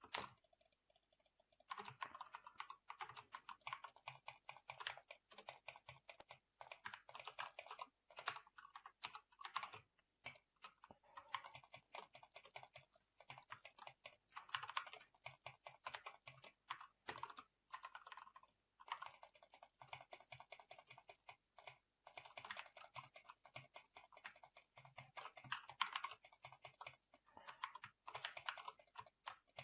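Computer keyboard keys being typed in fast runs of clicky keystrokes, with short pauses between runs.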